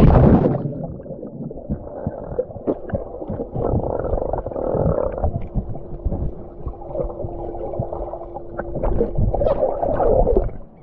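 A splash as the camera plunges into a swimming pool, then muffled underwater sound: gurgling, bubbles and knocks from swimmers moving in the water. A steady low hum runs through the second half, and near the end there is a louder rush of bubbles as a boy blows out underwater.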